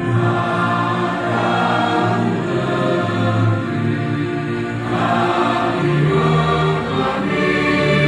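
A group of adults singing a song together in unison, holding long notes.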